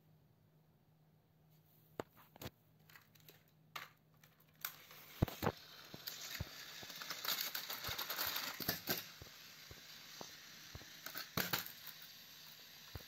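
Light plastic clicks and clatter with rustling, from toy trains and plastic track being handled. A few separate clicks come first, then a busier stretch of rustling and clicking that eases off near the end.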